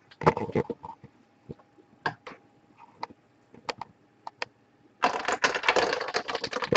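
Trading cards and their plastic packaging being handled: scattered light clicks and taps, then from about five seconds in a dense crackling rustle.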